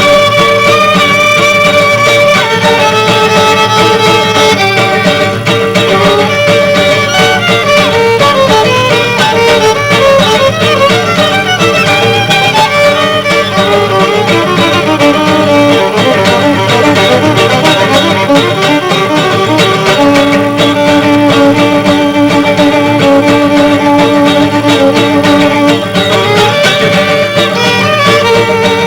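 Violin playing the lead melody, mixing long held notes with quicker runs, over guitar accompaniment in a live jazz-fusion arrangement.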